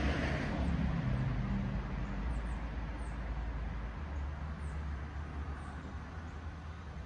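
A vehicle driving past on the road, its engine and tyre noise loudest at the start and fading away, leaving a steady low rumble.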